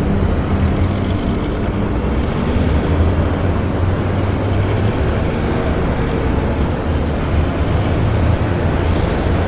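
Added city street traffic ambience: a steady mix of vehicle engines running with a low rumble.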